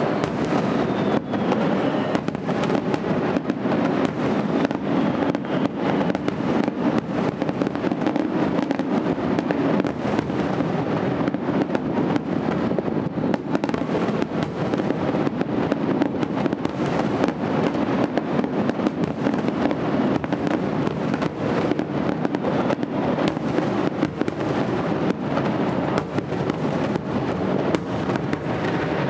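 Aerial firework shells bursting in quick succession: a dense, unbroken run of bangs and crackle that keeps up at an even loudness.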